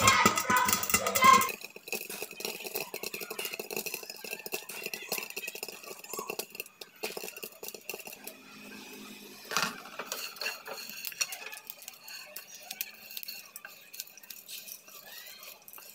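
Jowar (sorghum) kernels popping in a heavy pot under a glass lid: a scatter of small pops and clicks, with one sharper knock near the middle. Near the end a wooden spatula stirs the popped grain against the pan. A brief snatch of music at the very start.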